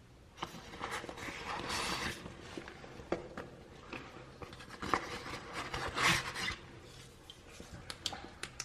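Handling noise: rustling and rubbing with scattered sharp clicks as a camera and gear are handled and set down.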